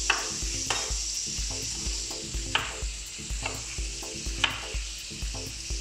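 Knife dicing a tomato on a wooden chopping board, its blade tapping the board at an irregular pace, over a steady sizzle of blacktail bream frying in a pan.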